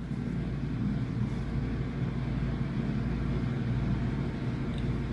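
Steady low background rumble with a faint, even hum, and no sneeze or other sudden sound.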